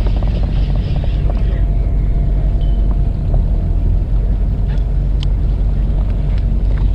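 Fishing boat's engine running with a steady low drone. A baitcasting reel is cranked at the start, its winding ticks stopping after a second or so.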